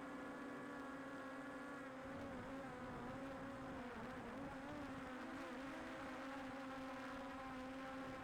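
Quadcopter drone's propellers humming at a steady pitch, which wavers up and down for a few seconds mid-way before settling again.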